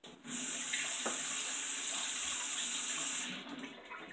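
Water running steadily from a tap for about three seconds, turned on and off abruptly.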